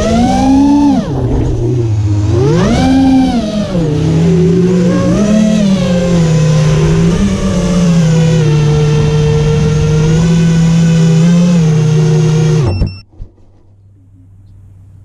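Electric motors and propellers of a self-built FPV quadcopter, recorded by the GoPro riding on it: a loud whine that swoops up and down in pitch with the throttle, then holds steady, and cuts off suddenly near the end, followed by a faint click.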